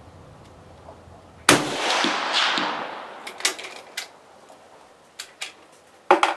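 A single rifle shot from a sporterized K98 Mauser firing 8mm ammunition, about a second and a half in, its echo ringing on and fading over about a second and a half. Several small metallic clicks follow, and a quick cluster of clicks near the end as the bolt is worked.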